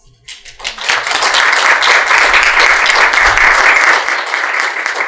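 Audience applauding: the clapping starts just after the opening, builds to full strength within a second, and begins to thin out near the end.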